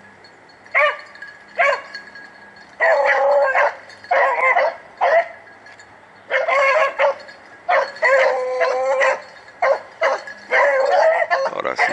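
Rabbit-hunting hounds giving tongue as they run a swamp rabbit's trail: a string of short, sharp barks and longer drawn-out bawls, one call after another.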